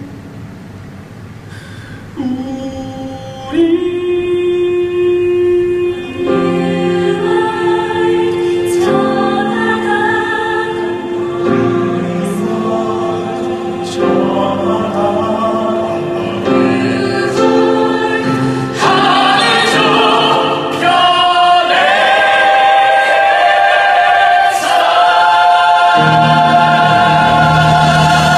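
Stage-musical ensemble singing together in chorus with instrumental accompaniment. It starts soft, then voices enter in layers about two and three and a half seconds in and build in loudness to a held full-voiced final chord near the end.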